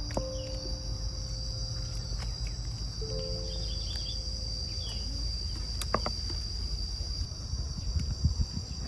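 Steady high-pitched drone of insects, with a low rumble underneath. A few held background-music notes sound in the first half, a sharp click comes about six seconds in, and a few low thumps come near the end.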